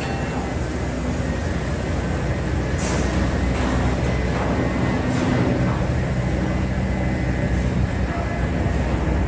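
A large engine running steadily, with a few short knocks or rattles about three to five seconds in.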